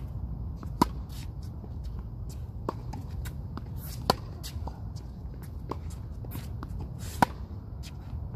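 Tennis ball struck by racket strings in a baseline rally: three sharp pops from the near player's strokes about three seconds apart, the last the loudest. Fainter clicks of the far player's hits and the ball bouncing on the hard court come in between.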